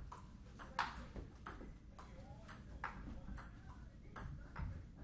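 A table tennis rally: a string of sharp clicks as the celluloid-type ball bounces on the table and is struck by the paddles, about two to three a second at uneven spacing, with the loudest hit about a second in.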